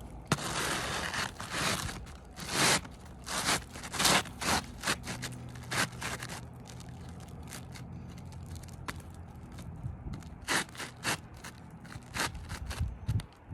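Roofing shingles being worked loose: a series of irregular scrapes, crunches and tearing sounds, denser in the first half and again near the end.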